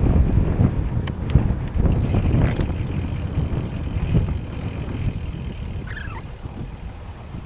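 Wind buffeting the microphone during a bicycle ride: a gusty low rumble that eases toward the end. There are two sharp clicks just after a second in and a brief high chirp around six seconds.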